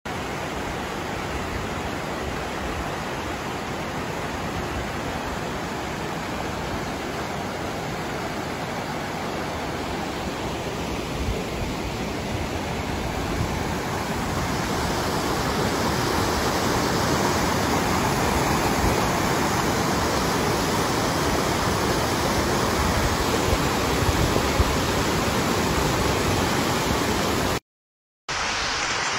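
Steady rush of a shallow, rocky mountain river running over stones, getting a little louder about halfway through. The sound cuts out for a moment near the end.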